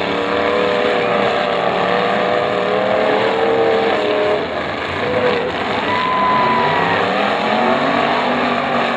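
Several demolition derby cars' engines running and revving at once, their pitches rising and falling as the cars drive and turn on the dirt.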